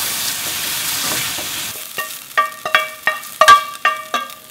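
Beef and shiitake mushrooms sizzling as they are stir-fried in a stainless steel pan, the sizzle stopping a little under two seconds in. Then about seven sharp, ringing metal knocks as the pan and a wooden spatula knock against a stainless steel mixing bowl while the food is scraped out into it.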